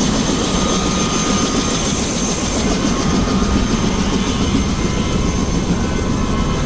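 Helicopter engine and rotor running steadily, heard from inside the cabin with the door open, with a steady high whine over a low drone.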